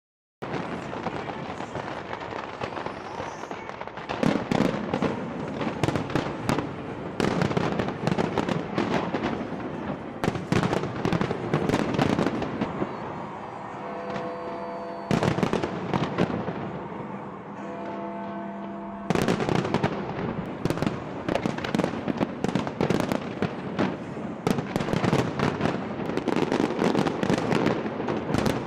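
New Year fireworks display with many bangs and crackles in quick succession. About halfway through the bangs thin out for several seconds while a few steady musical tones are heard, then the dense bangs start again.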